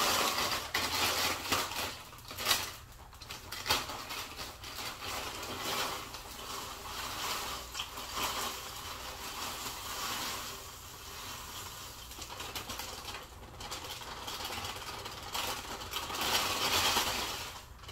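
Doritos tortilla chips rustling and clattering as they are shaken out of a crinkly chip bag into a pot, with the bag crinkling, loudest at the start and again near the end.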